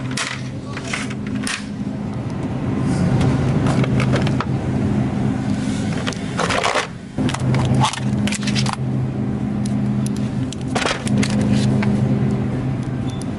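Groceries being handled in a plastic shopping basket: clicks, knocks and crinkles of plastic food trays and packaging, over a steady low hum.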